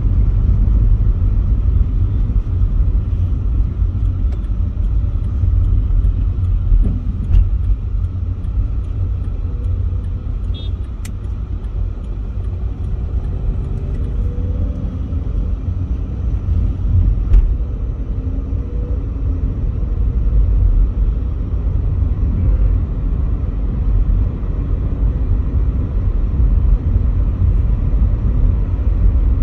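Cabin noise of a Volkswagen Polo GT on the move: a steady low rumble of engine and tyres on the road, with a few faint clicks.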